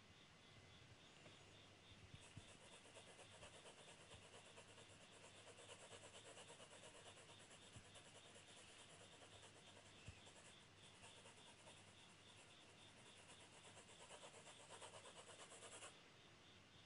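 Graphite pencil shading on drawing paper: faint, quick back-and-forth hatching strokes that start about two seconds in and stop abruptly near the end.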